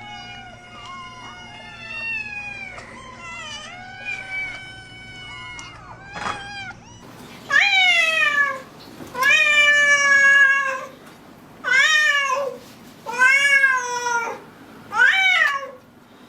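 Cats meowing: first a few quieter, drawn-out, wavering yowls, then from about halfway five loud meows in a row, each rising then falling in pitch.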